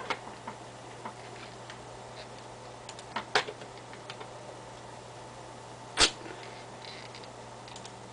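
Computer mouse clicking now and then, a few sharp clicks with the loudest about six seconds in, over a steady low electrical hum.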